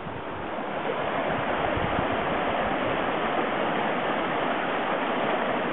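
Rain-swollen forest stream rushing over rocks, a steady, even rush of water.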